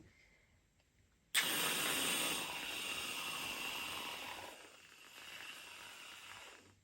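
Whipped cream spraying from an aerosol can: a hiss that starts suddenly about a second in, then drops to a softer hiss for the last two seconds and stops.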